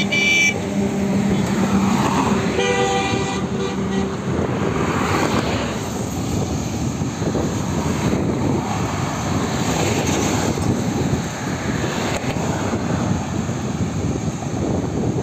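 Traffic of trucks and buses on a highway, a steady rush of engines and tyres that swells as vehicles pass. A vehicle horn sounds briefly at the start, and a longer horn blast comes about two and a half seconds in, lasting over a second.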